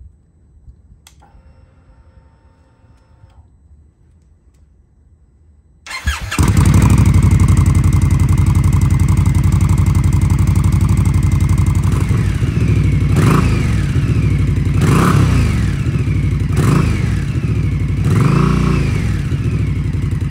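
Indian Scout Rogue V-twin on its stock exhaust, started about six seconds in after a few quiet seconds, then idling loudly. It is blipped four times, each a quick rise and fall in revs, in the last several seconds.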